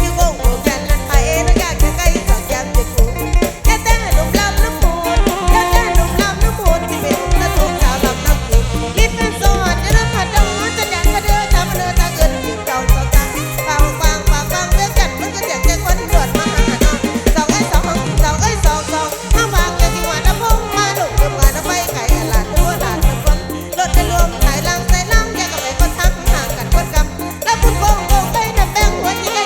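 Live mor lam band playing a lively toei dance number, with a heavy, booming bass and a steady driving beat.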